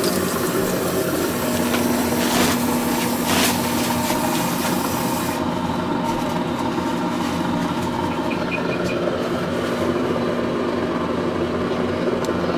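Tap water from a brass faucet running into a porcelain sink, cut off abruptly about five seconds in. A steady low hum carries on underneath throughout.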